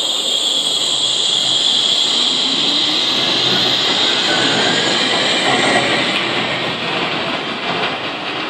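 Wuppertal Schwebebahn suspension railway train moving off past close by: steady running noise of its wheels on the overhead rail, with a high whine above it that fades a little as the train draws away.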